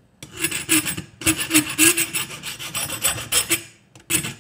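Hand file rasping across the steel jaws of pliers held in a bench vise: a run of quick back-and-forth strokes, about three a second, a short break about four seconds in, then two more strokes.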